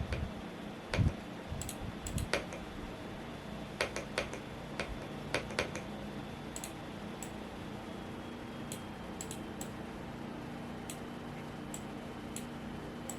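Irregular keystrokes on a Womier S-K71 mechanical keyboard, in quick clusters at first and then only a few scattered clicks, over the steady hum of a fan. A short low thump about a second in is the loudest sound.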